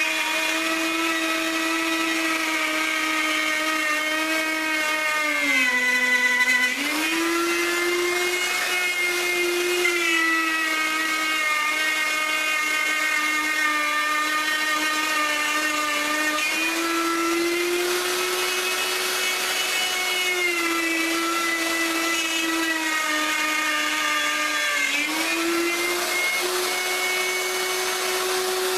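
Electric router running at speed as it cuts the tabletop edge, a steady high whine. Its pitch sags sharply for about a second as the motor loads in the cut, then recovers, with a few smaller dips later.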